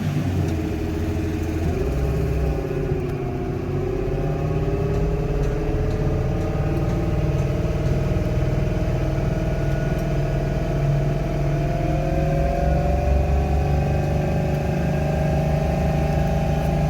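Chevrolet Optra engine running as the car is driven on a road test after a transmission oil and filter change. The engine pitch dips about three seconds in, then climbs slowly and steadily as the car accelerates.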